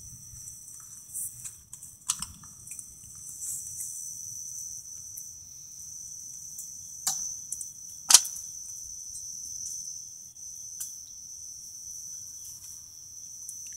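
Crickets chirping steadily, with a few sharp clicks about two, seven and eight seconds in, the last the loudest.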